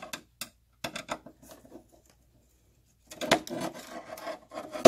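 A long metal tool clicking and tapping against the inverter's sheet-metal chassis and board edge, then scraping and rubbing against the metal for the last couple of seconds.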